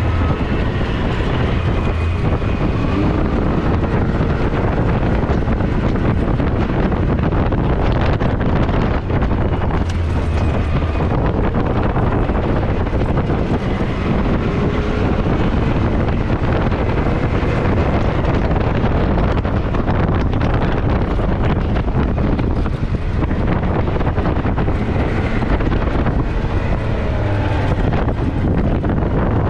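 Can-Am Maverick X3 side-by-side running along a dirt trail, its turbocharged three-cylinder engine droning steadily under wind buffeting the microphone.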